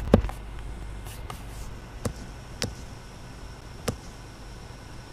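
A few sharp, separate clicks over a low steady hum: a loud one just after the start, then three more spread out, two close together about two seconds in and one near four seconds.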